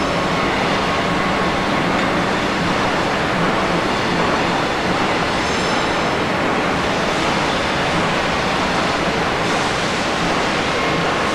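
Motorcycle wheel-rim roll forming machine running: a loud, steady mechanical rumble with a low hum, and a brief high-pitched squeal about halfway through.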